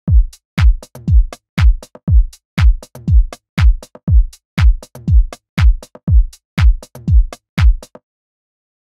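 Electronic backing music: a drum-machine beat with a deep kick drum twice a second and crisp clicks above it. The beat stops suddenly about a second before the end.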